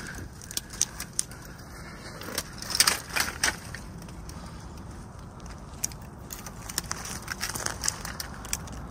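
Dry twigs and brush crackling and scraping as someone pushes through a thicket: a run of irregular sharp clicks and snaps, loudest in a cluster about three seconds in, over a steady low rumble.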